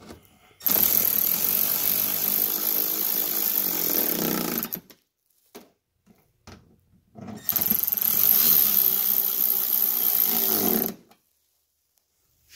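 Cordless electric ratchet running bolts in to tighten a wheel-well shield: two long runs of the motor, about four and three and a half seconds, with a pause between.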